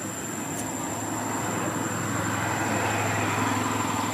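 A motor engine running steadily with a low hum, growing louder toward the end.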